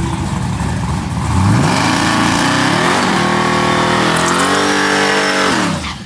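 Drag car engine accelerating hard off the line, its pitch climbing steeply, dipping briefly at a gear shift and climbing again, then falling away as the throttle is lifted near the end.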